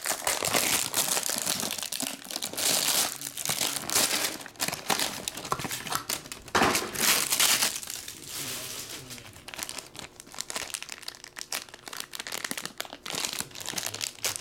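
Plastic wrapping crinkling and tearing as a trading-card box's shrink-wrap and a glossy black plastic pack are pulled open by hand. It comes in louder rustling spells in the first half, then thinner crackles near the end.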